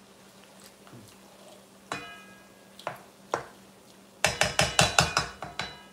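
Wooden spoon knocking against a large black cooking pot: one sharp clink with a brief ring about two seconds in, two lighter knocks, then a fast run of about eight loud taps, some five a second, near the end.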